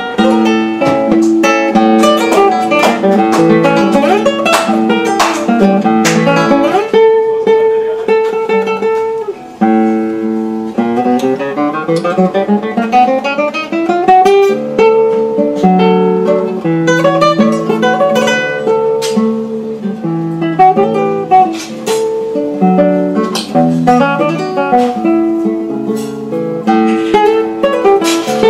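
Nylon-string classical guitar played solo, a Spanish piece: a plucked melody over chords. About seven seconds in a chord is held for a couple of seconds, then a quick rising run of notes leads back into the melody.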